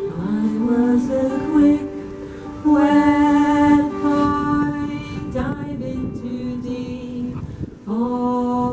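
Music: a slow melody sung by a voice, with gliding, held notes.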